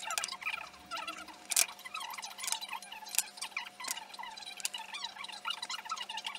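Small scratching and scraping of a thin metal marking point on oak domino blanks through a paper template, with a few sharp knocks of the wooden blanks being handled, the loudest about one and a half seconds in. A faint steady hum runs underneath.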